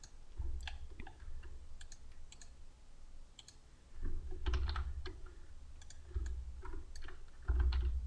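Scattered clicks of a computer mouse and keyboard being worked at a desk, with a low rumble coming and going in short spells.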